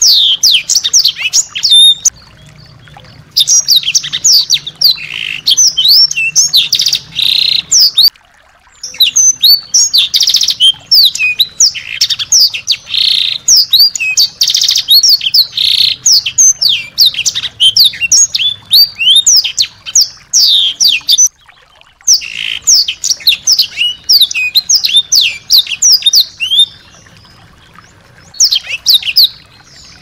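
Small songbird singing quick runs of high, sharp, falling notes, in phrases broken by short pauses. This is a masteran recording, played to set off white-rumped shamas.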